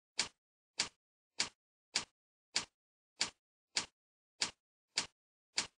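Computer keyboard's down-arrow key pressed over and over: about ten short, sharp clicks, evenly spaced a little more than half a second apart, with silence between them.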